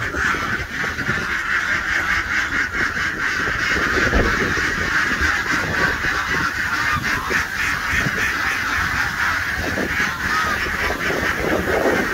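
A flock of penned domestic waterfowl calling and honking non-stop, many birds at once, clamouring for the rice feed being put out.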